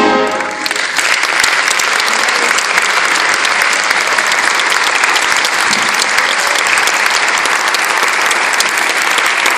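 A brass band's final held chord ends within the first half-second, then an audience applauds steadily.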